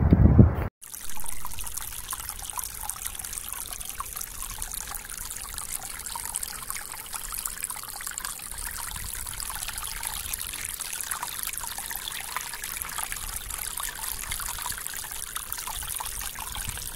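Wind rumbling on the microphone for under a second, cut off abruptly; then shallow seawater trickling and bubbling over a seaweed-covered reef rock close to the microphone, a steady hiss with many small crackles.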